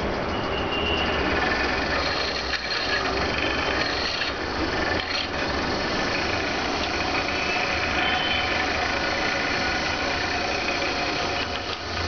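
A small motor-driven machine running steadily, with a low hum underneath and no clear rhythm.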